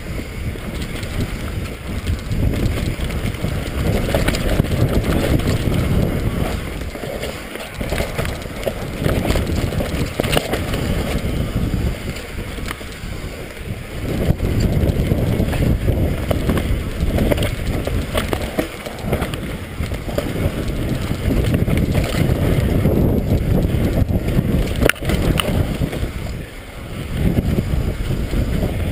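Mountain bike riding down a dirt singletrack: wind buffeting the camera's microphone over the rumble of the tyres, with scattered sharp knocks and rattles from the bike over bumps and roots.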